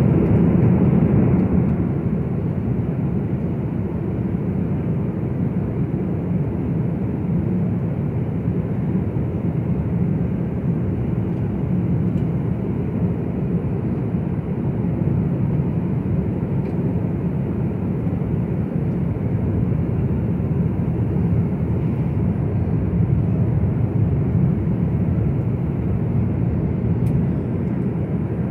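Cabin noise of a jet airliner in cruise flight: a steady, low rush of engine and airflow noise that does not change.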